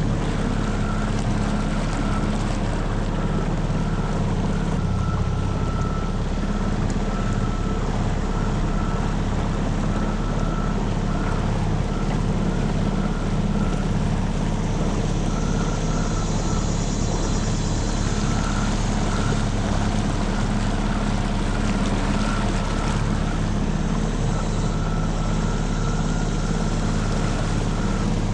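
Tohatsu 9.8 hp four-stroke outboard motor running steadily at low speed, pushing a small V-bottom boat.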